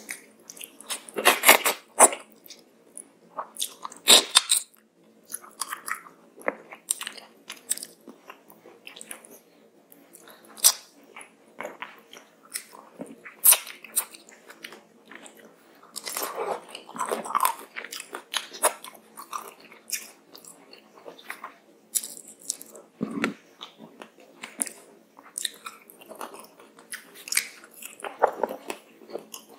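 Close-miked chewing of handfuls of rice and fish curry eaten by hand, with many irregular sharp wet mouth clicks.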